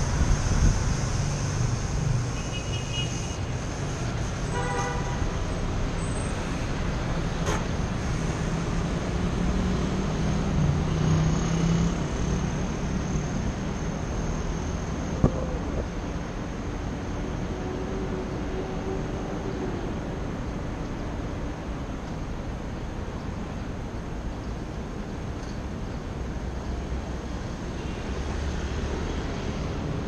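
Steady city road traffic and low rumble on a helmet-mounted action camera as the bicycle rides through town, with a short car horn toot about five seconds in.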